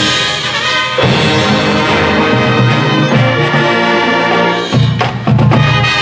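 High school marching band playing its field show: brass holding sustained chords over percussion. A new chord enters about a second in, and sharp accented hits near the end lead into a loud chord.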